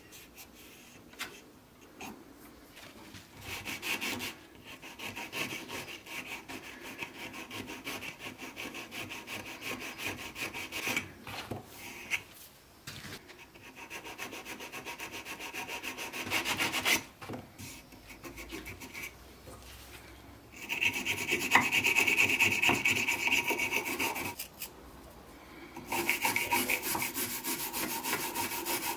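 Sandpaper rubbed by hand along the wooden body of an antique hand plane, in several passages of quick rasping strokes a few seconds long, the loudest a bit past the middle.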